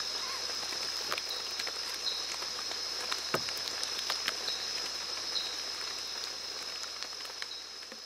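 Rainforest ambience: a steady high-pitched insect buzz with short chirps now and then and scattered drips and ticks, fading out near the end.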